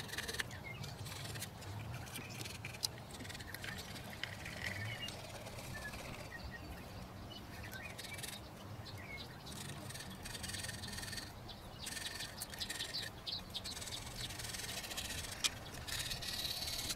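Carbide scraper blade scratching across the cast-iron deck of a Toyota 1KZ-TE diesel block, scraping the top face clean in uneven strokes.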